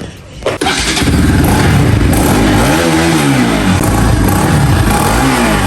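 Bajaj Pulsar NS200's single-cylinder engine cold-started, catching about half a second in and then running, with two brief revs that rise and fall in pitch. The owner complains of a bad noise coming from the engine.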